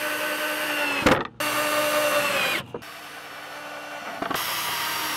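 Power drill driving screws into wood, its motor whining in short runs: it stops briefly about a second in, and its pitch drops at the end of the second run before it carries on more quietly.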